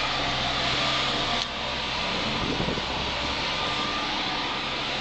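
Engine of road-construction machinery running steadily with a low hum and a broad hiss. The sound drops a little in level about a second and a half in.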